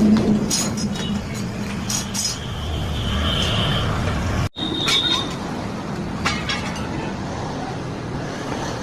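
Machine-shop workshop noise: a steady mechanical hum with scattered metallic clicks and clinks, a short high whine about three seconds in, and a brief dropout about four and a half seconds in.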